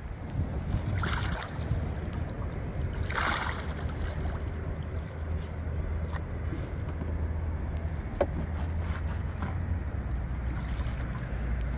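Water splashing briefly about a second in and again, more strongly, about three seconds in as a huge Wels catfish thrashes at the boat's side while held by the jaw, over a steady low rumble.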